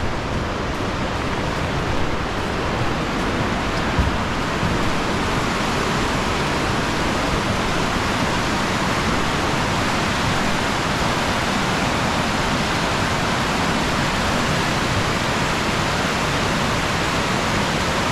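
Waterfall rushing: a loud, steady roar of falling water at the foot of the falls.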